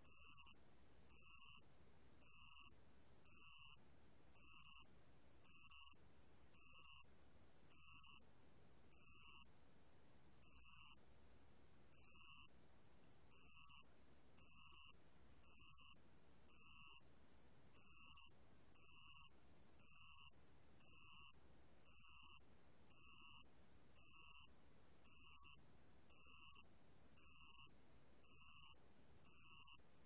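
Ground cricket Dianemobius nigrofasciatus (알락방울벌레) singing at 28 °C: a high, buzzy trill repeated steadily, about three short trills every two seconds, with one longer pause about a third of the way in.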